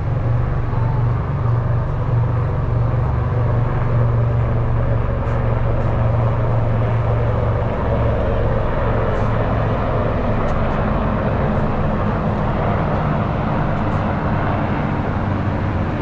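Steady outdoor ambience: a constant low droning rumble under an even wash of noise, with no distinct events.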